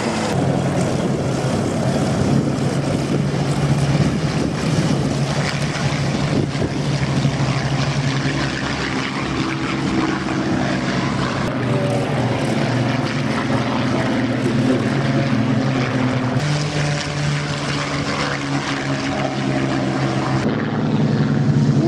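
Supermarine Spitfire V12 piston engines and propellers running, a loud, steady drone with a deep hum underneath. The pitch and tone jump abruptly a few times, near the middle and toward the end.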